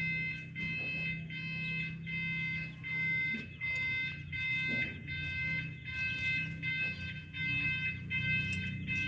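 A high, steady beeping tone of several pitches at once, repeating about twice a second, over a low steady hum.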